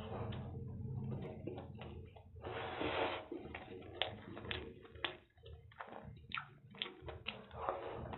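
Close-miked eating of egg chow mein noodles by hand: wet chewing and lip-smacking clicks, with a brief slurp about two and a half seconds in.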